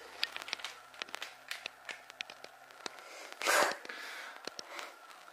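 Light clicks and taps of coffee cups and a paper coffee sachet being handled and set down on a table, with a short breathy puff about three and a half seconds in.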